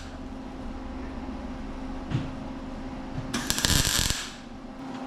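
A welder laying a short weld on rusty truck cab-mount metal: a crackling hiss about a second long, a little past three seconds in, over a steady low hum.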